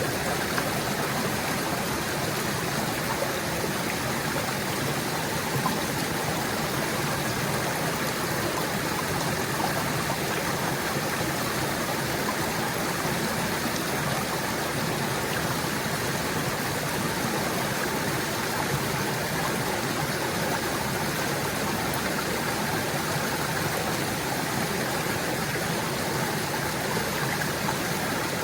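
Small stream gurgling over rocks, a steady, even rush of water with no breaks.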